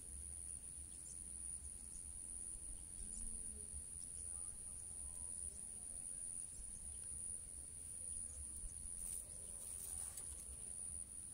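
An insect calling: one unbroken, high-pitched tone, with a low, uneven rumble underneath.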